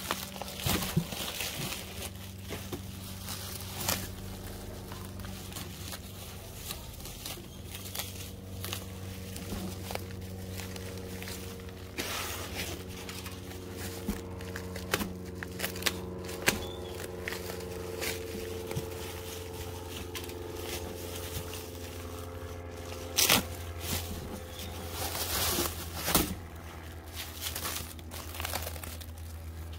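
Bubble wrap and plastic film crinkling and rustling as a wrapped exhaust downpipe is unpacked from a cardboard box, in short irregular spells with a couple of louder rustles near the end. A steady low hum runs underneath.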